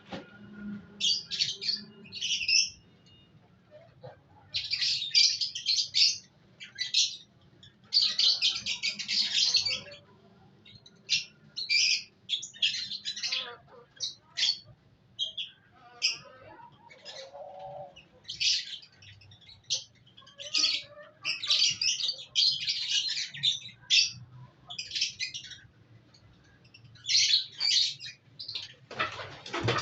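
Lovebirds chattering in irregular shrill bursts of chirps and squawks, some brief and some running on for a second or more, with short pauses between.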